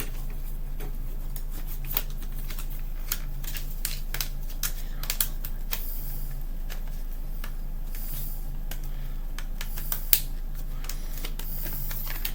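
A CD booklet and plastic jewel case being handled: scattered light clicks and paper rustles, with one sharper click about ten seconds in.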